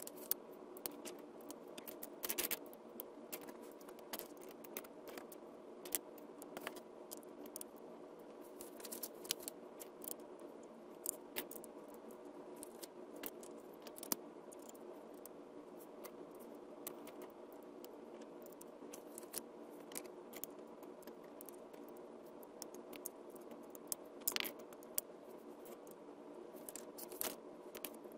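Plastic LEGO bricks being handled and pressed together: irregular sharp clicks and small rattles, a few louder snaps, over a steady faint hum.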